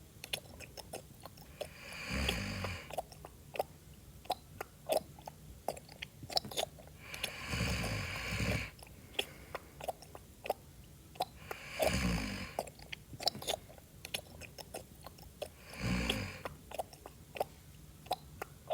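Loud chewing, a steady run of short clicks and smacks, broken by four snores, one every four to five seconds, each with a low rattle.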